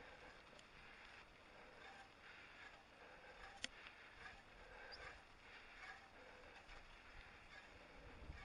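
Near silence: faint rolling noise of a mountain bike ridden over a grassy field track, with a few small ticks and one sharp click about three and a half seconds in.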